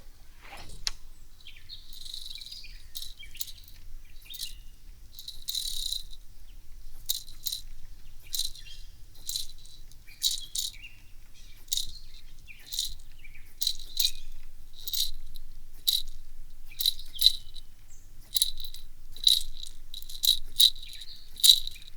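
Strike King KVD 300 hard jerkbait's internal rattles clacking underwater, heard through a hydrophone. The clacks come as a string of short, sharp bursts, one with each twitch of the lure, about one to two a second.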